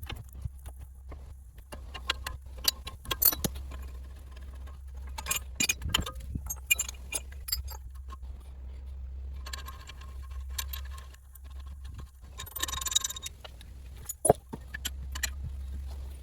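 Metal tools and parts clinking, tapping and scraping against each other during wheel hub bearing work, with an irregular run of sharp knocks, one ringing strike near the end, and a steady low hum underneath.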